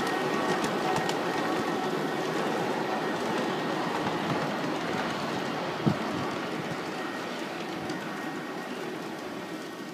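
G-scale model freight train rolling over garden railway track close by, a steady rumble with wheel clatter that slowly fades as it moves away. A single sharp click about six seconds in.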